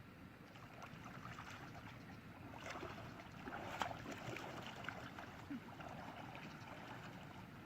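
Light splashing and trickling of water, with one sharper splash about four seconds in.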